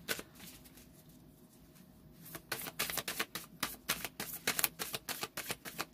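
Tarot cards being handled and riffled, a rapid run of light papery clicks and flicks that starts about two seconds in after a brief lull.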